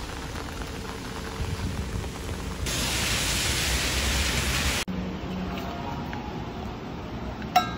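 Rain falling on an umbrella and a wet street: a steady hiss that grows louder and brighter about three seconds in. It cuts off suddenly to quieter indoor room tone, with a single sharp click near the end.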